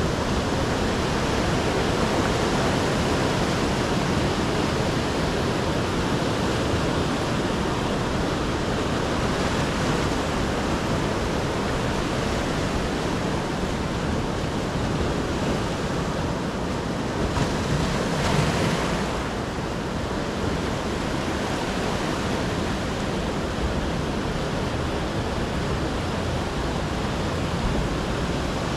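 Sea surf: waves breaking and washing up on the shore as a steady rush of noise, with one wave surging a little louder about two-thirds of the way through.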